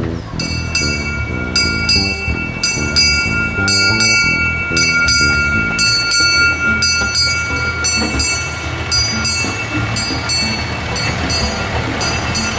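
Miniature locomotive's bell rung repeatedly, about two to three strikes a second, its ringing tone building and then fading out after about ten seconds while fainter strikes go on.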